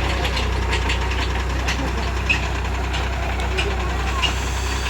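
New Holland tractor's diesel engine running at a steady, even speed, a low drone with light ticking over it.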